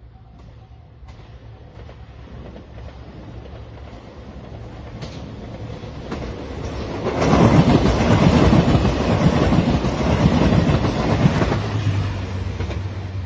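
JR Shikoku 2700-series diesel express train approaching and passing over a level crossing. It grows steadily louder for about seven seconds, is loudest for about four seconds as it goes by, then fades near the end.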